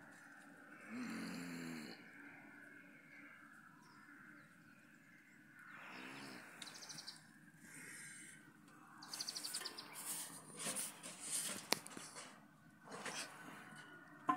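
Cattle moo once, short and low, about a second in, with another brief wavering call near six seconds. From about nine seconds there are loud crackling, rustling bursts of dry plant litter, with a sharp click near twelve seconds.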